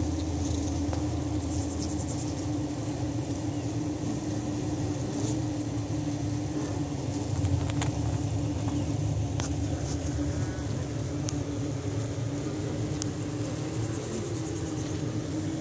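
Honeybee colony humming: a steady drone held at one pitch, with a low rumble beneath it and a few faint clicks.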